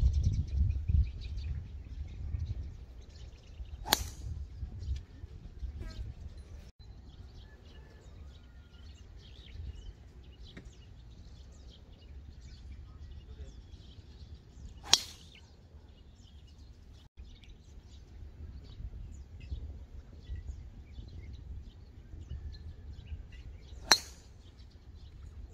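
Three golf tee shots: the sharp click of a driver's clubface striking the ball, three times about ten seconds apart. A low rumble sits under the first few seconds.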